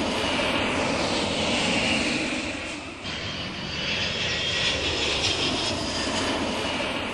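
Airplane engine sound effect: a steady rushing engine noise that swells and fades, with a short dip about three seconds in.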